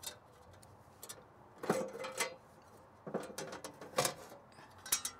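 Sheet-metal cover of an electrical breaker panel being pried loose and lifted off, with a series of metallic clanks, scrapes and clicks, several of them ringing briefly.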